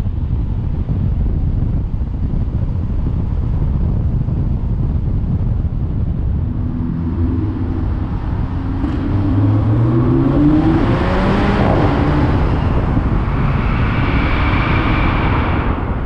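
Car driving with steady road and wind rumble. Partway through, in a road tunnel, its engine note climbs as it accelerates, and the sound cuts off abruptly at the end.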